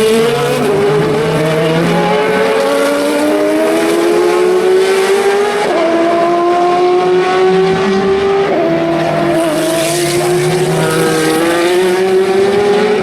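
Racing car engine accelerating hard and shifting up through the gears. Its pitch climbs steadily, then drops sharply at each of four upshifts about three seconds apart.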